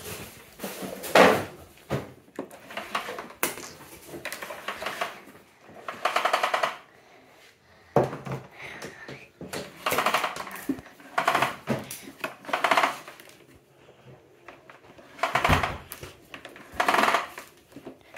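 Knocks and plastic clatter from an unplugged Dyson DC08 cylinder vacuum cleaner and its cord being handled and moved on a tiled floor; the motor is not running.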